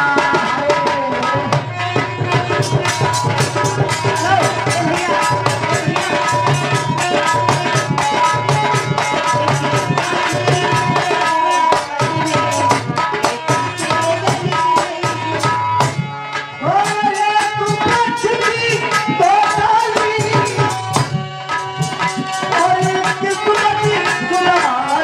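Instrumental break in an Indian folk song: a hand drum plays a fast, steady rhythm with deep regular beats under a melody instrument, and there is no singing.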